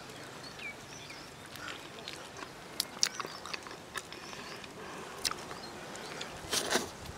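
Scattered soft clicks and smacks of eating by hand, fingers tearing apart banana-leaf-roasted stingray flesh on a plastic plate, with a short rustle near the end. Faint bird chirps sound behind it.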